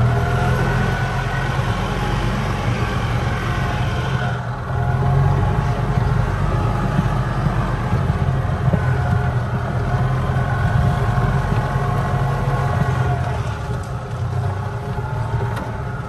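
Golf cart running steadily as it drives along, with a strong low rumble and a steady motor note.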